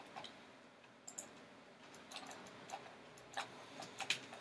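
Faint, irregular clicks of a computer mouse, about eight or nine scattered single clicks.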